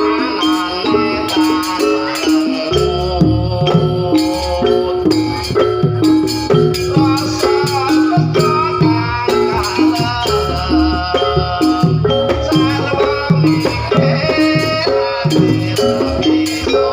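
Jaranan pegon music: a Javanese ensemble playing a repeating pitched melody over a steady, even percussion rhythm with shaken, rattle-like accents. A heavy bass comes in about three seconds in.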